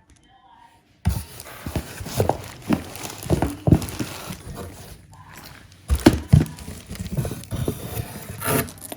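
A mailed package being opened by hand: cardboard and packaging rustling, with irregular knocks and clicks. There is a short lull about five seconds in.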